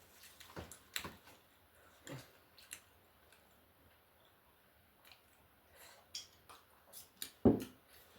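Someone eating on a close microphone: scattered wet mouth smacks and small clicks of chewing, with the loudest smack about seven and a half seconds in.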